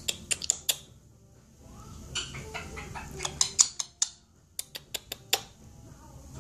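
A pet parrot chattering quietly in a mumbled, speech-like way, with runs of sharp clicks in the first second and again about two-thirds of the way through.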